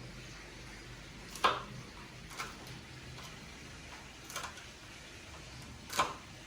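Kitchen utensils knocking and clinking against cookware: a few separate sharp strikes over a low steady background, the loudest about a second and a half in and another near the end.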